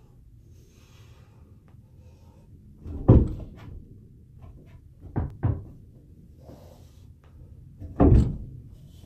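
Heavy thuds of an Indo Board balance board, its deck and roller landing under a man's feet during tricks: one about three seconds in, a quick pair around five seconds, and a loud one near the end.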